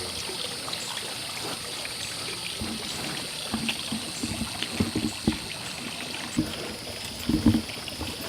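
Running water trickling steadily, with a scatter of irregular soft knocks and thumps in the second half.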